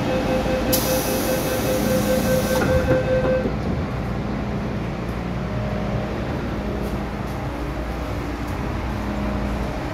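MTR M-Train doors closing, with a steady warning tone and a short hiss in the first few seconds. The train then sets off, its running and traction motor hum steady underneath.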